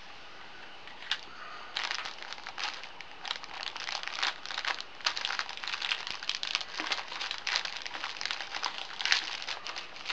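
Plastic packaging crinkling and rustling as it is handled and opened, starting about two seconds in and going on in a dense run of short crackles.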